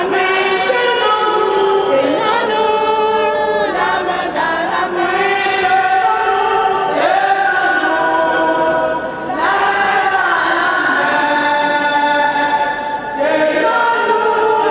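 A church choir singing a hymn together in phrases a few seconds long, with brief pauses between phrases and no instruments standing out.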